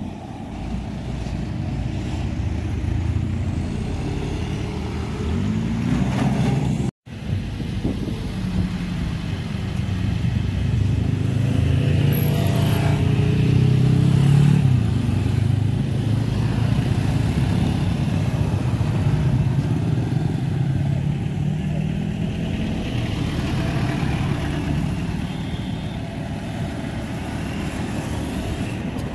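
Road traffic driving past: car, truck and motorcycle engines with tyre noise, swelling as vehicles pass close, loudest a little before halfway through. The sound cuts out for an instant about seven seconds in.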